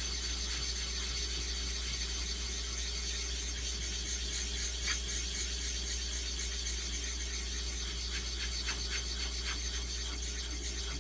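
A silicon carbide conditioning stone rubbed over the face of a diamond waterstone, a steady gritty scraping with scattered small clicks, knocking down the stone's surface skin and raised lettering.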